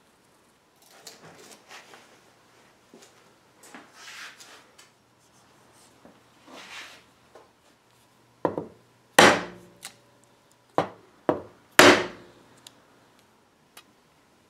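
Soft scratchy rubbing, then a run of about seven sharp knocks over a few seconds as a wide chisel chops straight down through a small piece of veneer on a board, cutting out a triangular patch.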